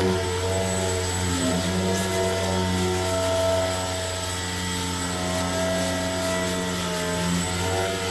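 A power tool's motor running steadily, a continuous hum whose pitch wavers slightly.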